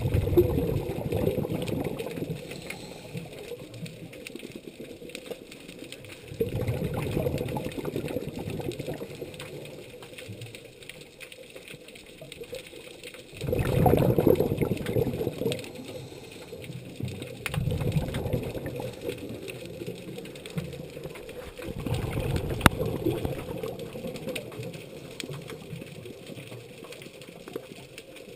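Scuba regulator exhalations heard underwater: five surges of rushing, bubbling noise several seconds apart, the rhythm of a diver's breathing, over a steady faint hum.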